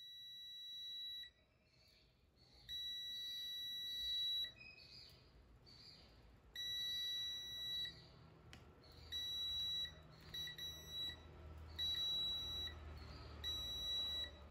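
ANENG digital multimeter's continuity beeper sounding in on-off beeps as the probes are held on a small component. The beeps mark when the circuit through the part is closed. There are three long, steady beeps first, then shorter, choppy beeps that cut in and out near the end.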